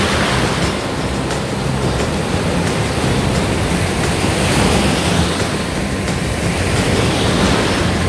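Ocean surf washing up the beach into shallow water: a continuous rushing hiss that swells a few times as waves break and run in.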